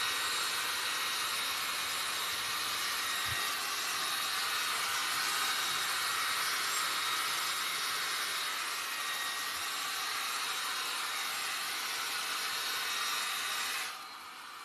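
Small handheld hair dryer blowing steadily: an even rushing hiss with a faint high whine. It cuts off about a second before the end.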